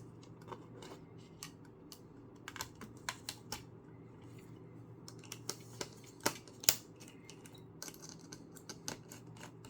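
Irregular light clicks and taps of small laptop parts being handled during a teardown, with two sharper clicks a little past the middle, over a faint steady hum.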